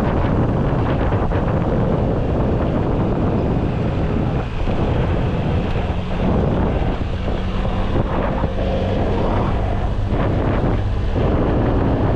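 A vehicle's engine running while under way, with heavy wind buffeting on the microphone; a steady low engine hum is clearer in the middle of the stretch.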